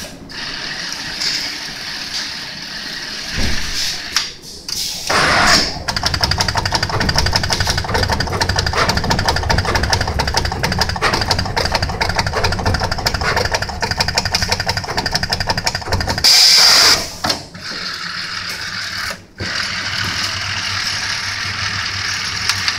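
Automatic PCB lead-cutting and through-hole assembly machinery running: a fast, even mechanical rattle and hum of its drives and chain conveyor. About two-thirds through there is a loud burst of noise lasting about a second.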